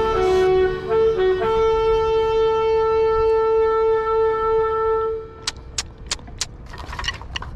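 Marching band wind section playing a short figure, then holding one long loud note that cuts off about five seconds in. A series of sharp clicks follows near the end.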